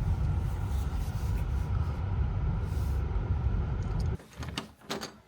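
Steady low road rumble inside a moving car. It cuts off abruptly about four seconds in, and a couple of short clicks follow.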